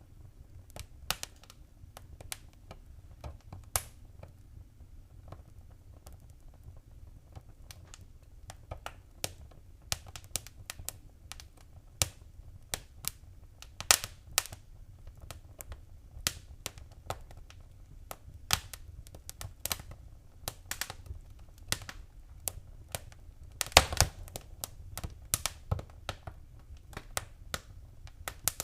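Wood fire crackling in a fireplace: irregular sharp pops and snaps over a low, steady rumble of the flames. The pops come more often in the second half, with a loud cluster near the end.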